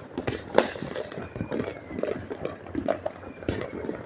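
Fireworks and firecrackers going off in an irregular string of pops and bangs, with one sharp, louder bang about half a second in.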